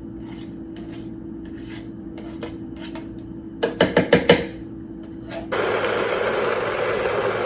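Light taps and a quick clatter of clicks, then a blender switched on about three-quarters of the way in, running steadily as it blends a smoothie.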